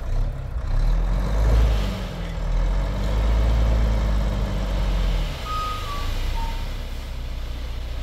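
Dump truck's diesel engine revved up to drive the tipper hoist while a load of sand slides out of the raised bed; the revs hold for a few seconds, then drop back to idle about five seconds in.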